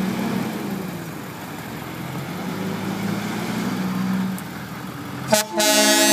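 Heavy truck engines running as a slow line of tow trucks and police cars rolls past. About five seconds in, a truck air horn starts suddenly with a loud, steady blast.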